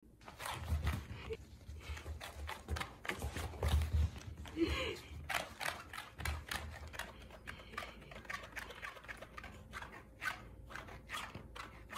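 Irregular quick scratchy ticks and taps of a cat's paws and claws and a play toy on a woven rug while the cat stalks and pounces, with a few dull thumps in the first half.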